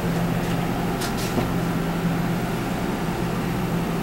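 A steady low machine hum with a couple of brief clicks about a second in.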